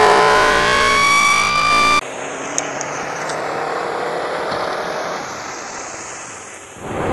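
A siren wailing with its pitch rising, cut off abruptly about two seconds in. Then a steady rushing noise with a slow swooping sweep through it, which fades and gives way to a louder rush near the end.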